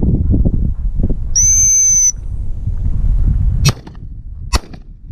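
A single short blast on a gundog whistle, then two shotgun shots a little under a second apart. Wind rumbles on the microphone until the shots.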